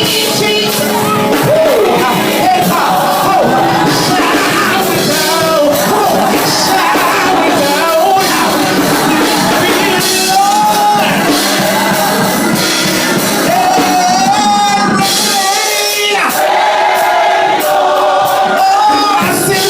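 Gospel choir singing with band accompaniment, loud voices carrying the melody in a large room.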